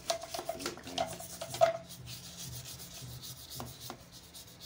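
Hand wiping and rubbing the generator engine's casing clean, a run of quick scrubbing strokes, busiest and loudest in the first two seconds and sparser after.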